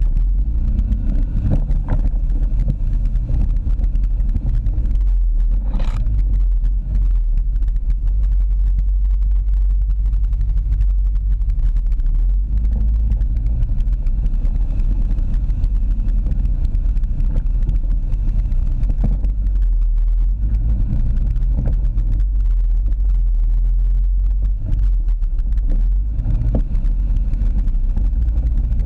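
ATV engine running steadily as the machine rides a rough, muddy dirt trail, a heavy low rumble with an occasional knock or jolt, heard close up from its front rack.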